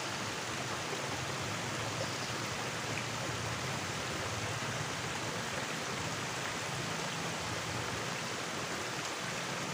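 A small river running, a steady, even rush of babbling water.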